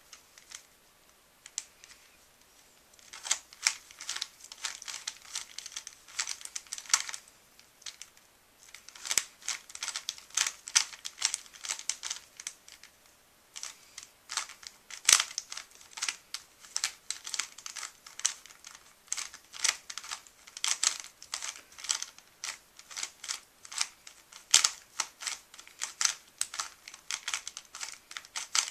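Plastic Rubik's Cube being turned by hand during a solve: rapid clicking and clacking of its layers in quick runs, with a few brief pauses.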